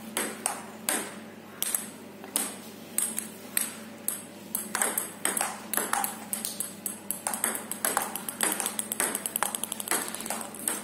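Table tennis rally: the ball clicking off the paddles and the table, about two hits a second at first, then a quicker run of ticks in the last few seconds.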